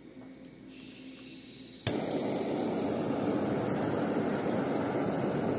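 Hand-held gas torch lighting: a faint hiss of gas from under a second in, a sharp click as it ignites just before two seconds, then the flame burning with a steady noisy roar.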